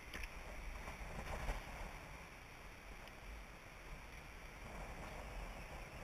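Wind rumbling on the microphone, with a few faint ticks near the start and around a second in.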